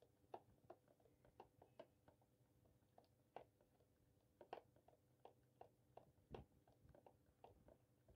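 Faint, irregular clicks of a spoon knocking against a bowl while stirring thick besan batter, about two or three a second, over a faint steady hum.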